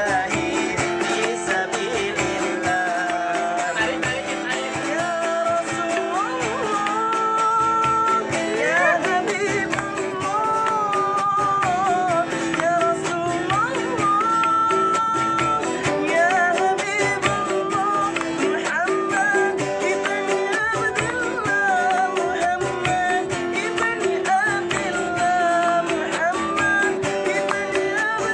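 A street busker singing a melodic song with guitar accompaniment, the voice holding and sliding between long notes.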